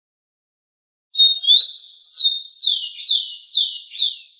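Rufous-collared sparrow (tico-tico) singing one song about a second in: a steady whistle and a rising note, then five down-slurred whistles at about two a second.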